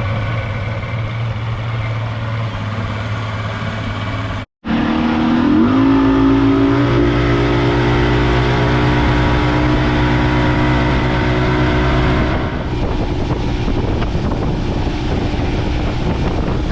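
Outboard boat motor running under way, its pitch rising as it speeds up about five seconds in and then holding steady. From about twelve seconds in the motor drops away behind rushing wind and water noise.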